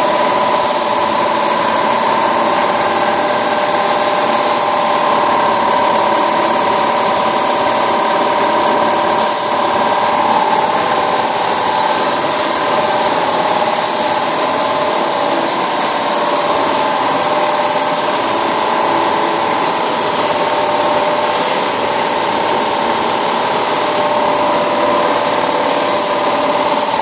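Compressed-air paint spray gun hissing steadily as paint goes onto a car body, over a steady machine hum with a few unchanging tones.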